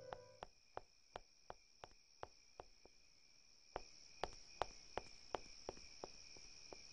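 Faint night ambience of insects trilling steadily at a high pitch, with a faint, regular clicking about three times a second.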